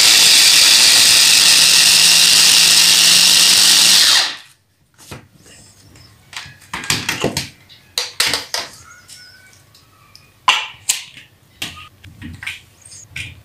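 Tefal stick blender's motor running on its chopper attachment, grinding tomatoes in a steady high whirr for about four seconds before it is switched off. After that come scattered plastic clicks and knocks as the lid and chopper bowl are handled.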